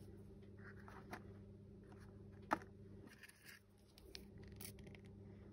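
Faint rustling and scratchy handling of loose silk and cotton fibres being pulled apart by hand, with one sharp tick about two and a half seconds in, over a low steady hum.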